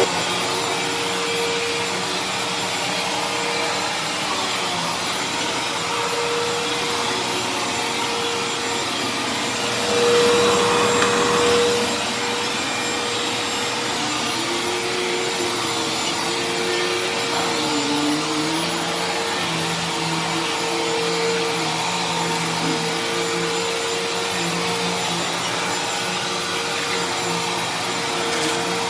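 Hoover Tempo bagless upright vacuum cleaner running steadily while vacuuming carpet, a constant motor hum and airflow noise. It briefly gets louder about ten seconds in, and its lower tones waver up and down in the second half.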